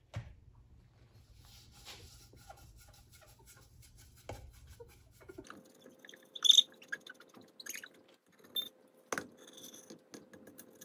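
Paper tissue rubbing and wiping over a glazed ceramic platter, with scattered small clicks, scrapes and rustles from handling the plate. A short sharp sound about six and a half seconds in is the loudest.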